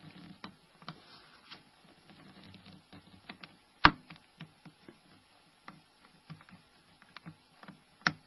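Small clicks and taps of an SRT6 opening tool working along the edge of a Nokia 5500 phone's cover, with two sharp snaps, one about four seconds in and one near the end, as the cover's metal frame is levered loose from its chassis.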